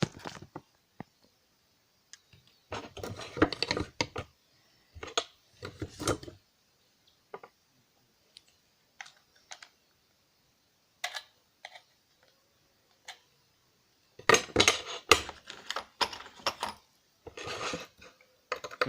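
Sharp metallic taps and clicks in irregular clusters with short quiet gaps, denser near the end: a screwdriver being struck to shock-loosen the tight, impact-set screws of a laptop hard drive's case.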